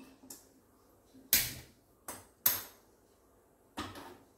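A hand-held spark gas lighter clicked three times in quick succession at a gas stove burner to light it, then a clay pot knocks down onto the burner's metal pan support near the end.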